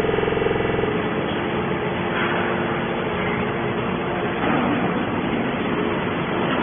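Hydraulic scrap metal baler running: a steady mechanical din, with a humming tone in about the first second before it gives way to a dense clattering noise.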